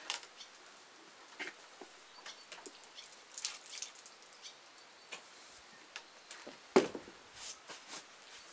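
Wet leather hiking boots being handled and pulled off: small scrapes, rustles and clicks, then a single sharp thud a little under seven seconds in as a boot is set down on the wooden deck.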